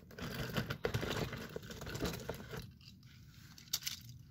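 Cardboard and plastic toy packaging being handled: a few seconds of scraping and crinkling, then quieter, with one sharp click near the end.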